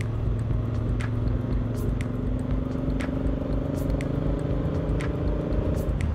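Motorcycle engine running at cruising speed, with a heavy wind rumble over it. The engine note climbs slightly through the middle, then fades near the end, with a few faint ticks scattered throughout.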